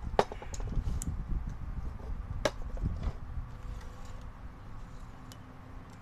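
Hand tools and an electric drill being picked up and set down on a workbench: a run of knocks and clicks over the first three seconds, the sharpest a moment in and again about two and a half seconds in, over rustling handling noise, then quieter.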